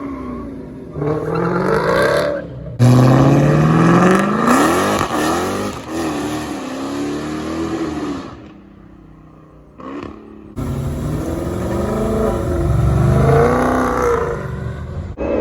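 V8 muscle car engines revving and accelerating, the pitch climbing and dropping with each rev. The sound jumps abruptly from one engine to another several times, with a quieter lull a little past the middle.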